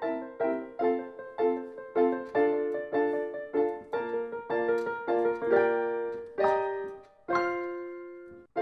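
Background piano music: a steady run of notes about two a second, ending on two long held chords that ring out and fade.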